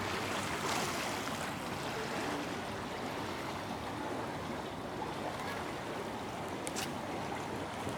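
Steady rushing of flowing water, an even unbroken wash.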